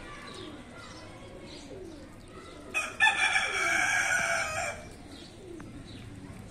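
A loud, drawn-out bird call lasting about two seconds, starting about three seconds in, over softer repeated bird calls in the background.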